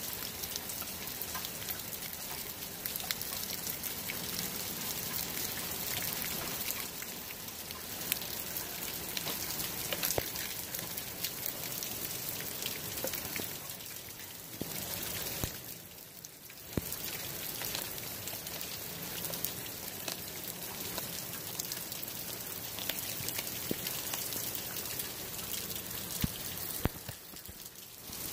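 Steady rain falling, with close raindrop ticks, and a Blue Bay Shepherd chewing on a large whole raw fish. The rain briefly softens about halfway through and again near the end.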